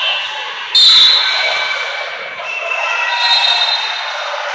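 A sharp, loud smack of a volleyball being struck, less than a second in, over a steady din of voices in a large gym.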